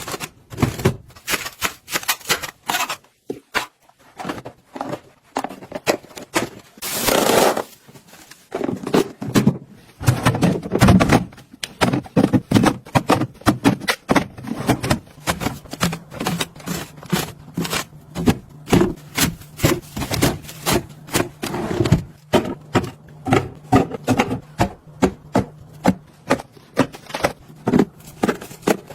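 Many quick knocks, taps and scrapes of containers and food items being handled, set down and slid into place while a fridge is organized, with a faint steady low hum joining about halfway through.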